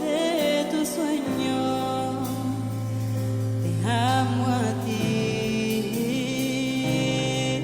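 Christian song with a wavering sung melody over held bass notes that change twice.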